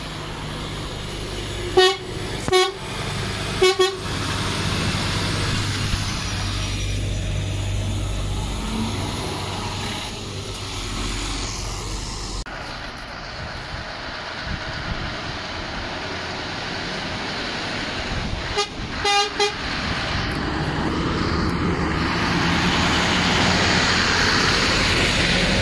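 Lorry horns tooting in short blasts, three near the start and another quick series of about three about two-thirds through, over the steady running of lorry engines. The engine sound grows louder toward the end.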